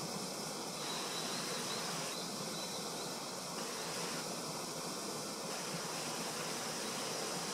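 Steady rushing outdoor background noise, like running water, with a faint high insect-like whine for a couple of seconds about a second in.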